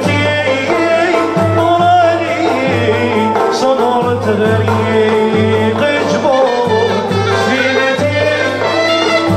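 A traditional Constantine ensemble playing a madh (praise song) live: oud, violins, banjo and clarinet carry the melody over a low bass note that repeats in a steady pulse.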